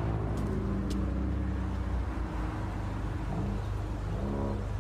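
Motor vehicle engine idling, a steady low hum, with two light clicks in the first second.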